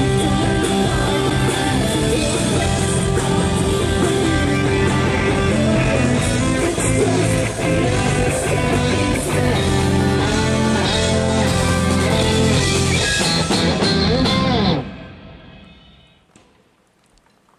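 Rock band playing loud, led by electric guitar; the music stops about fifteen seconds in and rings out to near quiet.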